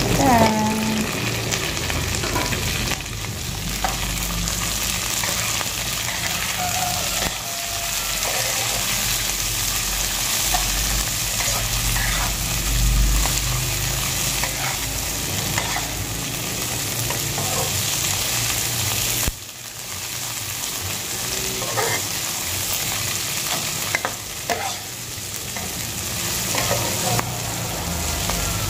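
Sliced chillies and shallots sizzling in hot oil in a non-stick wok, stirred steadily with a metal spatula that scrapes over the pan now and then. A low rumble runs underneath, swelling about halfway through.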